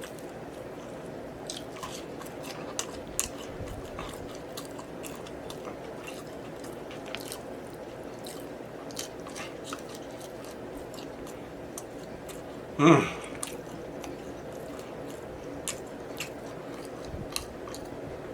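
Close-miked chewing of a BBQ rib sandwich: repeated wet smacking clicks of lips and teeth over a steady low background hum. One louder, brief mouth sound comes about two-thirds of the way through.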